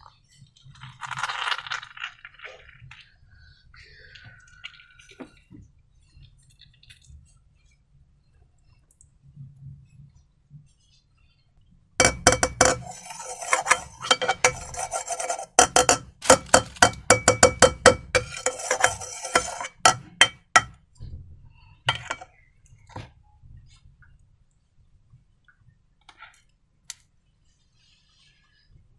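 Rapid clinking and rattling of hard objects against a bowl or container while slime ingredients are handled, lasting about eight seconds from about twelve seconds in, with a ringing note to the strikes. Earlier there are brief squeaky, rubbery handling sounds.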